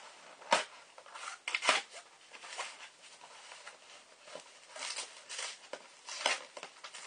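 A cardboard parcel being cut and opened by hand: a small blade scraping and slitting the packing, with irregular rustling and scratching of cardboard and paper. The sharpest scrapes come at about half a second, near two seconds in and about a second before the end.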